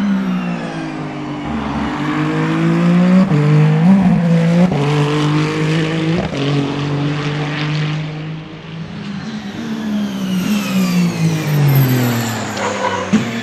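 Race car engine revving hard, its pitch climbing and then dropping sharply a few times before falling away lower in the second half.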